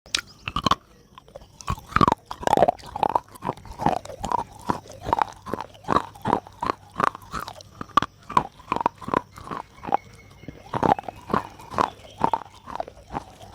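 A person chewing pieces of soft clay pot with wet, crunchy bites, a steady run of about two to three crunches a second.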